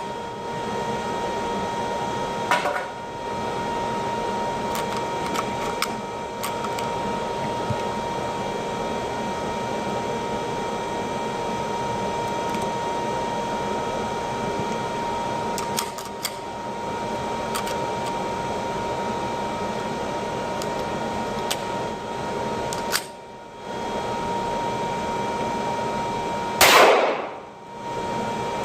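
Steady hissing background with a constant hum-like tone, a few sharp clicks, and one loud gunshot about 27 seconds in.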